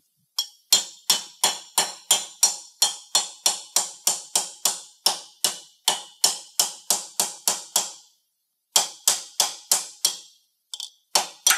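Ball peen hammer tapping steadily, about three strikes a second, on the steel axle ring of a Guardian HP wheel seal left on the axle spindle shoulder, flattening it out of round so it can be removed without cutting the shoulder. The tapping stops briefly about eight seconds in, resumes, and ends with a few lighter taps.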